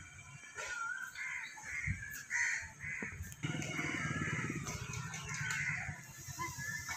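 Crows cawing, a quick run of short calls, with a low rumble joining about halfway through.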